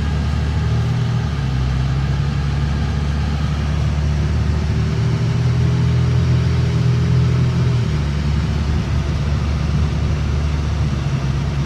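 Steady low drone of a car's engine and road noise, heard from inside the cabin while driving.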